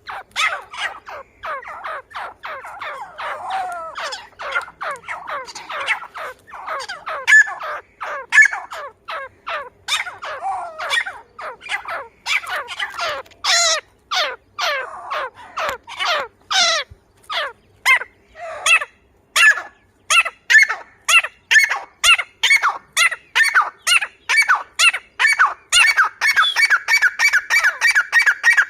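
Grey francolin calling: a long, dense run of short, harsh, repeated notes. Near the end it settles into an even run of about three calls a second on one pitch.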